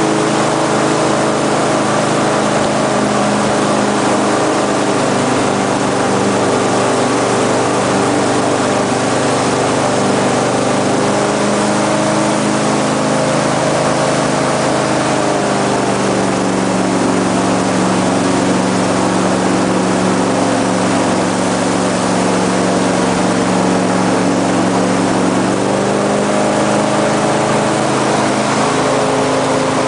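Airboat's engine and propeller running loud and steady while under way, the pitch dropping as it throttles back about halfway through and rising again a few seconds before the end.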